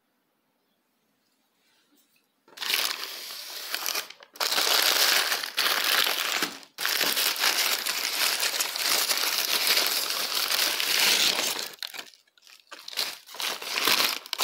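A white paper bakery bag crinkling loudly as it is handled and opened around a sesame-topped bread, starting about two and a half seconds in, in long stretches with a couple of short breaks and a few shorter bursts near the end.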